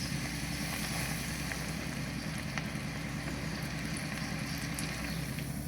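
Rice-flour-coated dried anchovies frying in hot oil: a steady sizzle with a few faint pops. Under it runs a steady low hum.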